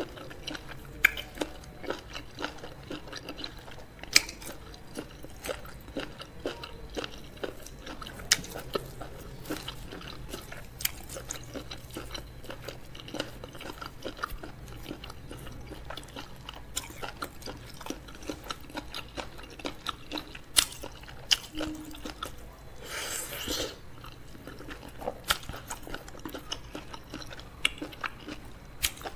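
Close-miked chewing and biting of fufu with okra soup and crab: wet mouth sounds with sharp clicks and crunches scattered throughout, and a short rushing burst about three quarters of the way through.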